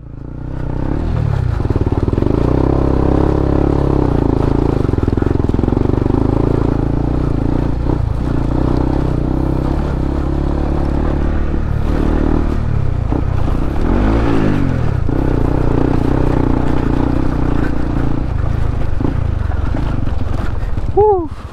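A Honda CB150X's single-cylinder engine pulling away and then running steadily under way. Its pitch rises and falls briefly about two-thirds of the way through.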